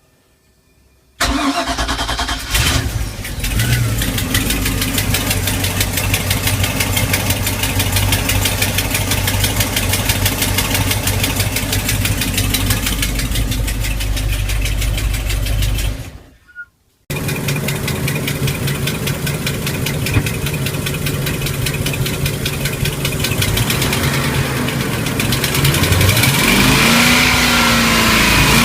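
MerCruiser 5.0L MPI V8 marine engine running with a rapid, even ticking, the sign of a leaking starboard exhaust manifold gasket. The engine sound breaks off for about a second halfway through.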